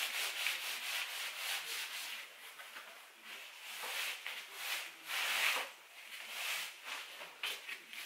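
Cloth rag rubbed back and forth over a wooden board freshly coated with water-based acrylic lacquer, blotting off the excess. It makes a series of irregular rubbing strokes, the loudest about five and a half seconds in.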